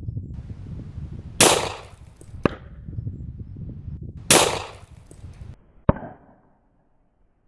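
Shots from a Glock 35 .40-caliber pistol: four sharp reports roughly a second to a second and a half apart. Two are short cracks and two have a longer, noisier burst.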